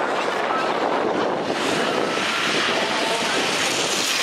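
Double-decker bus engine running as the bus drives round the track, under a steady rushing noise.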